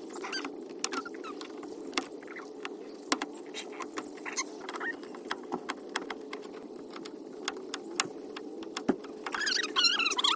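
Scattered plastic clicks, taps and rattles of interior trim and grab-handle covers being pried and unclipped, over a steady low hum. Near the end comes a brief run of high, wavering chirps.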